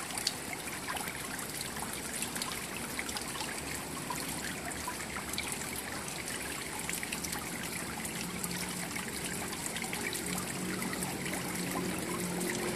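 Steady trickling of running water, with a faint low hum joining about ten seconds in.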